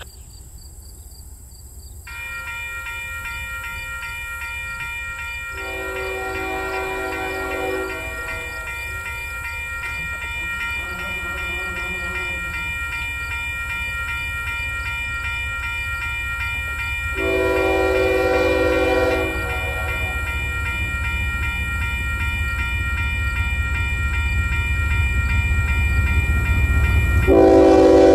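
Air horn of a GE ES44AC diesel locomotive leading a freight train, sounding a series of long blasts (about three loud ones and a fainter one) as the train approaches. Beneath it, the rumble of the diesels grows steadily louder.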